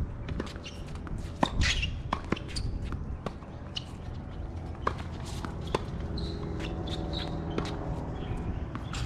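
Outdoor tennis court sounds: scattered sharp taps and knocks from play on the hard court over a steady low wind rumble on the microphone, with a few short high bird chirps.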